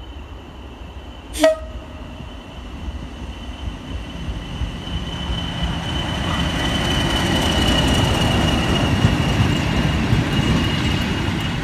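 British Rail Class 40 and Class 37 diesel locomotives passing: engine noise and wheels on the rails build to a peak and begin to fade, over a steady high whistle typical of the Class 40's turbochargers. A short horn toot about a second and a half in.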